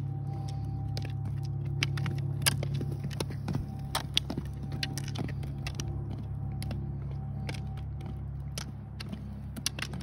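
Roller skis rolling on asphalt with a steady low rumble. Irregular sharp clicks come from ski poles planting on the pavement and skis being set down during step turns.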